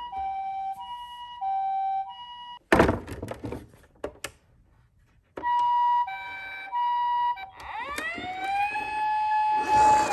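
Toy ambulance's electronic siren playing the two-tone hi-lo ambulance pattern. About three seconds in, a clatter of knocks breaks in, followed by a short pause. Then the two tones return, and near the end it switches to a rising wail that holds steady.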